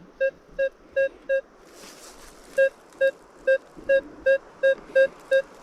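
Metal detector beeping at a steady pitch on a target, short even beeps about three a second. The beeps pause for about a second, a second and a half in, then resume. The target reads as fairly deep.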